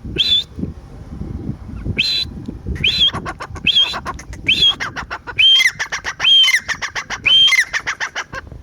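A partridge calling over and over: loud, harsh calls about once a second, coming closer together in the second half, with quick runs of short, sharp notes between them.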